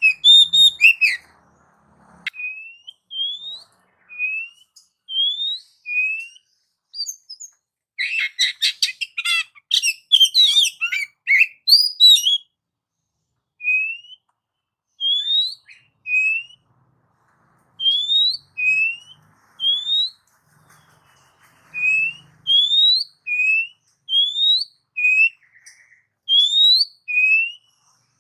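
Oriental magpie-robin singing a series of short, clear, upward-sliding whistles, about one a second, alternating higher and lower notes. About eight seconds in there is a burst of rapid, varied chattering notes lasting some four seconds.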